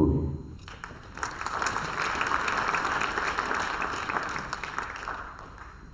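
Audience applauding. The clapping starts about a second in, holds steady, and fades out shortly before the end.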